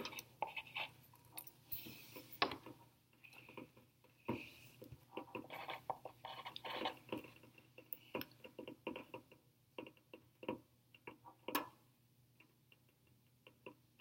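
Faint, irregular ticks and small clicks from beakers of water heating on electric hot plates, the water at about 60 °C and not yet boiling.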